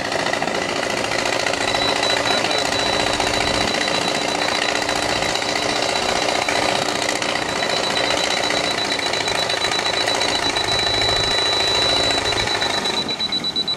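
Laser level receiver on a grade rod sounding a steady high-pitched tone while the rod is held on a pool wall panel to check its height, over steady machine noise.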